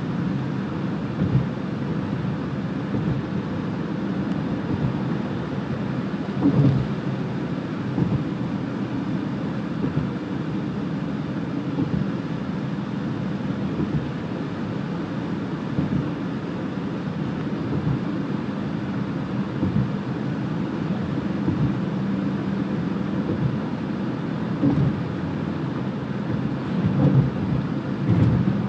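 Steady low rumble of a moving car's tyres and engine, heard from inside the cabin, with a few brief thumps, one about six seconds in and more near the end.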